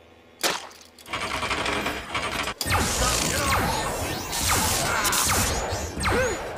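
Layered film sound effects of alien spiders swarming a machine: mechanical clicking and clattering, with a sharp hit about half a second in and the clatter growing louder from about two and a half seconds. Short falling screeches come near the end.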